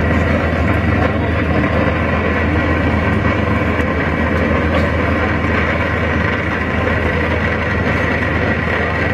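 Engines of an Austal 40 m high-speed ferry running under way, a steady low drone with a faint higher whine, heard from inside the passenger cabin.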